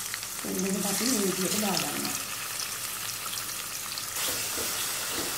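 Diced chicken breast sizzling steadily in hot coconut oil in a stainless steel wok, just after going into the pan. A voice is heard briefly near the start.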